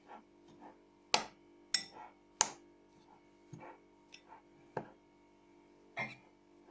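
Spoon clinking and scraping against a bowl while stirring a chopped egg and green onion filling: irregular sharp clinks, about six loud ones with a few fainter taps between.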